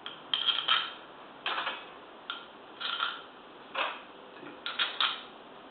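Small metal parts clicking and clinking as bolts are handled and set into an air compressor's cylinder head during reassembly: about six short clicks or little clusters of clicks, a second or less apart.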